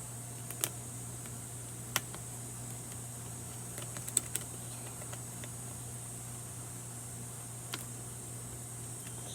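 Scattered sharp plastic clicks of a 3x3 Rubik's cube being turned and worked, with a small cluster of clicks about four seconds in; the cube is too tight and is being loosened. A steady low hum runs underneath.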